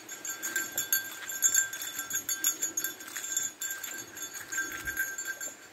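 Footsteps on a wet dirt track, with a light metallic jingle that rings along with the steps.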